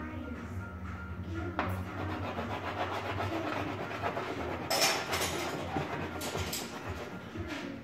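Crayon scribbling back and forth on a large poster board, a continuous dry scratching with a louder burst of strokes a little past halfway.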